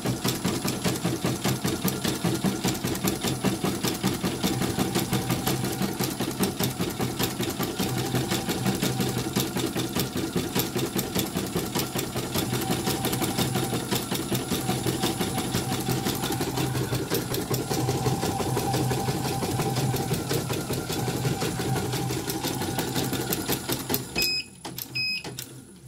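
Elnoss embroidery machine stitching at speed, a fast even run of needle strokes, on a test run after its rotary hook mechanism was cleaned and refitted. The stitching stops near the end, followed by two short beeps.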